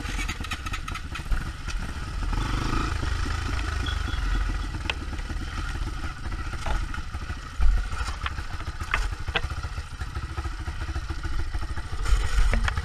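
Single-cylinder four-stroke trail motorcycle engine running at low speed on a slippery, rooty dirt track, with scattered knocks and clatter from the bike jolting over roots and rocks, the loudest a little past halfway.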